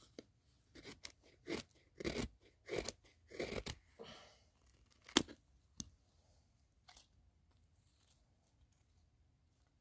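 Knife blade shaving a piece of dry wood: a run of short, crisp scraping cuts about one every half second, with a sharper click about five seconds in, stopping about six seconds in.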